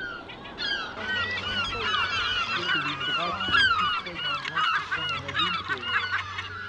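A cliff-nesting seabird colony: many birds calling at once in a dense, continuous chorus of short, overlapping cries.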